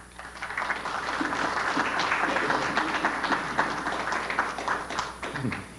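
Audience applauding: many hands clapping, building up within the first second, holding steady, then thinning out and dying away near the end.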